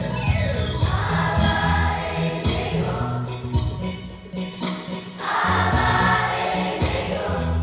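Children's choir singing over a steady electronic keyboard accompaniment, in two loud phrases with a quieter stretch between them about four seconds in.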